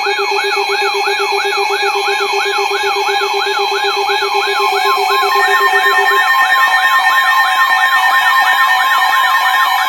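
Electronic siren tones sweeping quickly up and down, about three times a second, layered with several steady alarm tones. A low, rapidly pulsing tone cuts off about six seconds in, and new steady tones join just before it.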